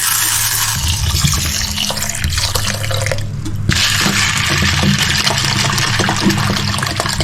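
Kitchen tap running water into a bowl of lentils to soak them, stopping for a moment about three seconds in and then running again. Background music plays underneath.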